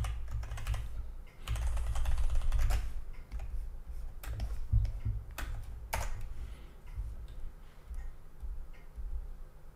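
Clicking and tapping on a computer keyboard at a desk, scattered keystrokes with a dense run of rapid clicks about a second and a half in, and low bumps from the desk.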